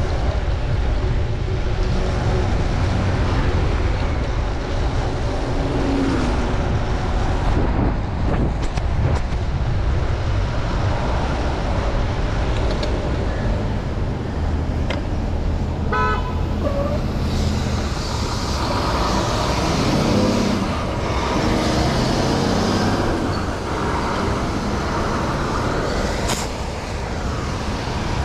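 Steady city street traffic heard while riding a bicycle on wet roads in the rain, with vehicles passing close by. A brief pitched tone stands out about halfway through.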